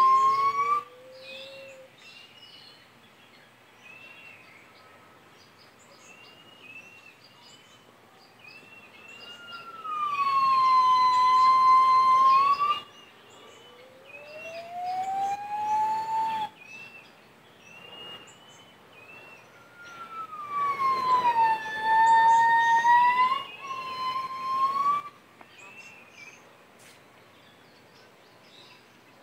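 Two gibbons calling in loud bouts of long, pure whooping notes. Some notes sweep down and level off, and a lower note rises, in bursts at the start, around the middle and about two-thirds of the way through, with quieter gaps between.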